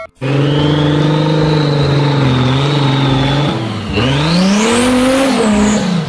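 Off-road 4x4's engine running at a steady pitch, then dropping back about four seconds in and revving up again, with a high whine rising with the revs.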